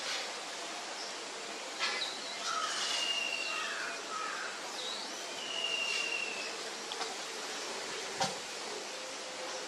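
Outdoor woodland ambience: a steady insect hiss with a few whistled bird calls, twice a long held whistle, and a few sharp clicks.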